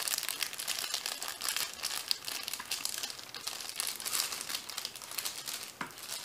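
Packaging wrapped around a keyboard wrist rest being crinkled and pulled off by hand: a continuous crackling, rustling run of many small clicks.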